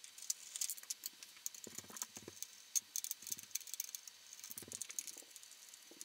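Screwdriver backing out the small screws of a dimmer switch's wall plate and mounting yoke: faint small clicks and scrapes of metal on metal, with a few short low squeaks.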